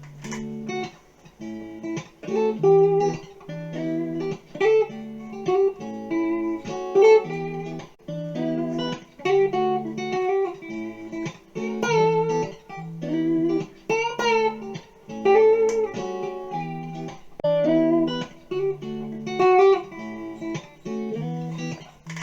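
Guitar music: plucked notes played in a phrase that repeats every couple of seconds.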